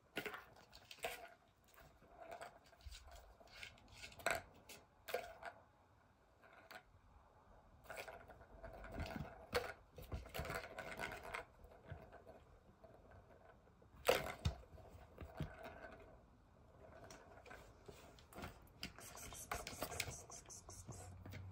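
Plastic balls rolling and rattling around the tracks of a three-tier ball-track cat toy as a kitten bats at it, with irregular light clicks and knocks. A sharper knock comes about two-thirds of the way through.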